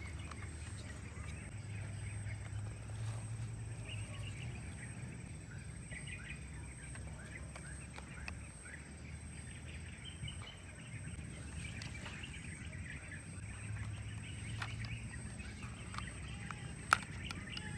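Outdoor ambience of birds chirping over a low rumble and a thin steady high tone. About a second before the end comes a single sharp plastic click as the battery door of a Kodak M35 film camera is opened.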